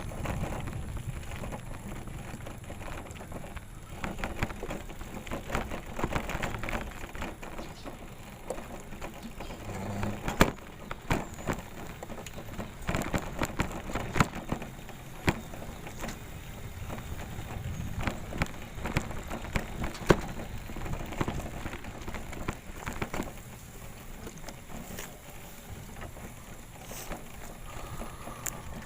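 Bicycle riding over rough ground: a steady crunching rumble of the tyres with irregular clicks and rattling knocks as it goes over bumps.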